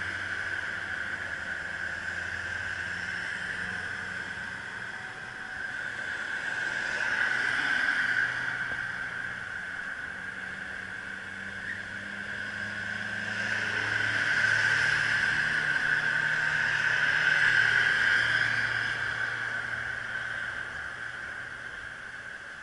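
Riding noise and street traffic heard from an electric bicycle climbing a steep road: a steady whine under a changing low hum, with two louder rushing swells, about seven seconds in and again from about fourteen to eighteen seconds in.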